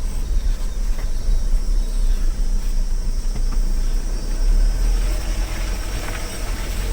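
Vehicle engine and tyre rumble, steady and heavy in the low end, while driving over a rough, muddy dirt road.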